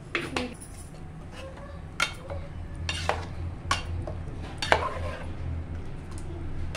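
A ladle stirring thick chicken curry in an aluminium pressure cooker, mixing in turmeric powder. It knocks sharply against the pot several times, roughly a second apart, over a steady low hum.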